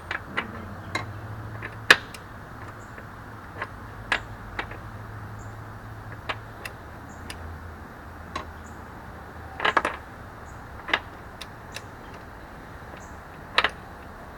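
Scattered sharp metal clicks at irregular intervals, with a quick cluster about ten seconds in, from a ratcheting torque wrench being worked on a motorcycle's rear axle nut, over a faint low hum.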